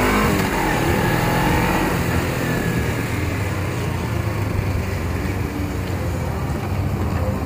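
Suzuki sport motorcycle's engine running as it is ridden at low speed, its pitch rising and falling with the throttle in the first couple of seconds, then running steadily.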